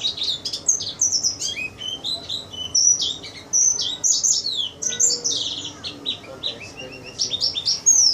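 White-eye (pleci) singing a fast, unbroken string of high chirps and trills.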